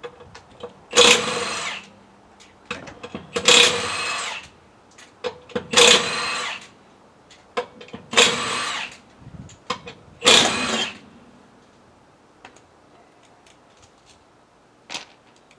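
A power impact wrench spinning off the wheel's lug nuts: five short bursts of whining about two seconds apart, one for each nut, with small clicks between them.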